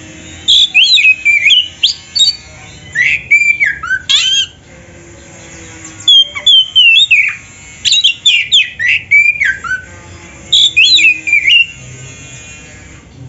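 Oriental magpie-robin (kacer) singing loudly, in about six bursts of quick, varied notes that slide up and down, some clear and whistled, some harsh, with short pauses between the phrases.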